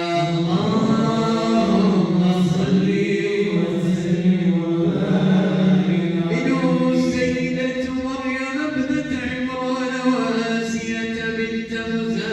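A group of men chanting a devotional Islamic prayer on the Prophet (salawat) together in unison, unaccompanied, in long held, slowly moving phrases.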